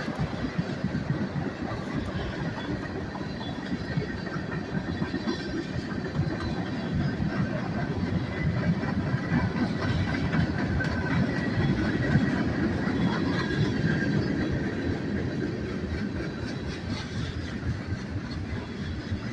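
Loaded freight cars of a manifest train rolling past, a steady rumble and clatter of steel wheels on the rails that grows a little louder around the middle.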